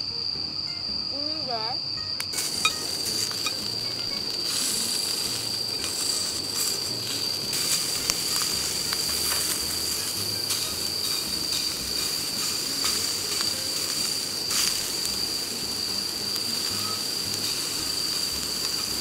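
Crickets trilling steadily on one high note. From about two seconds in, meat sizzles in a skillet over a single gas burner, with a few light clicks of chopsticks against the pan.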